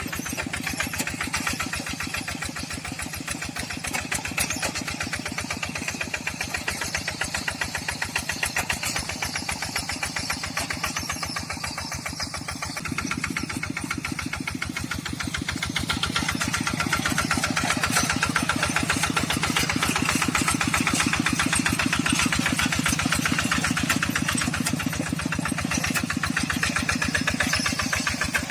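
Tractor diesel engine running with an even firing beat, getting louder about halfway through and then holding steady.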